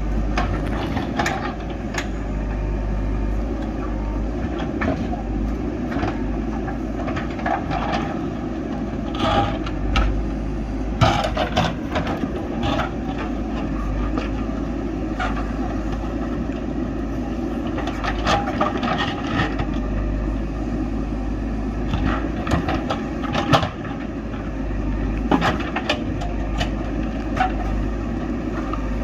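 JCB backhoe loader's diesel engine running steadily under load, with repeated scrapes and knocks from the bucket working the ground and tree roots.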